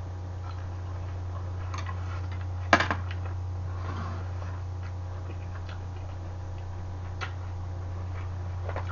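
A sharp knock with a couple of quick rattles about three seconds in, over a steady low hum and scattered small ticks; shortly after, a brief rustle of a paper tissue being handled.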